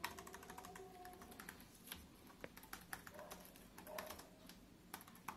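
Faint typing on the Raspberry Pi 400's built-in keyboard: quick, irregular runs of key clicks.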